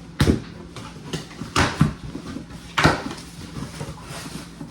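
A delivered package being handled and opened: a few short rustling, tearing and knocking sounds of cardboard and wrapping, spaced irregularly.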